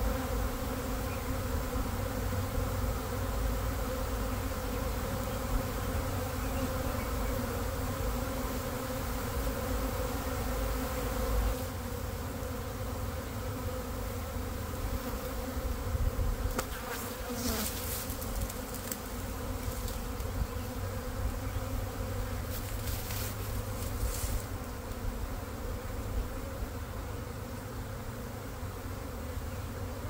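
Steady, dense buzzing of a honeybee swarm at the hive, many bees fanning their wings at the entrance to spread the queen's lemongrass-smelling scent and call the swarm in. A few brief rustles come through in the second half.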